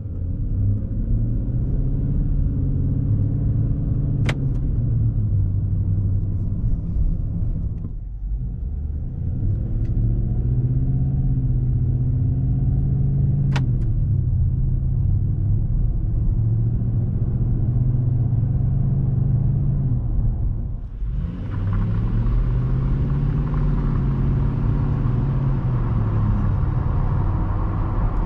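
Nissan Titan's 5.6L V8 exhaust heard from inside the cab through three accelerations, the engine note rising and levelling off each time, with brief dips in between. Two light clicks come during the first two runs, and a louder rushing noise joins the last run.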